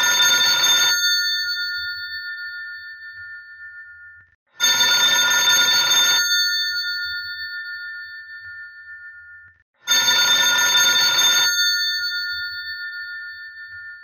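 Old-style telephone's mechanical bell ringing: bursts of rapid clattering rings about a second and a half long, repeating about every five seconds, with the bell tones ringing on and fading after each burst. One burst is ending as the sound begins; two full ones follow, about four and a half and ten seconds in.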